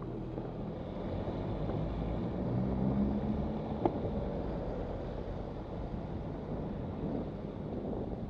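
Steady wind buffeting on the microphone of a bicycle-mounted camera, with the bicycle's tyre noise on wet paving. There is a single sharp click about four seconds in.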